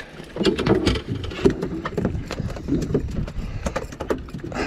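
Freshly landed mackerel thrashing on the boat's deck, an irregular rapid patter of knocks as their bodies and tails slap the hull.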